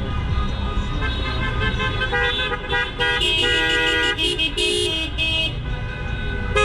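Several car horns honking in short and longer blasts at different pitches, overlapping, starting about two seconds in, over a steady low rumble.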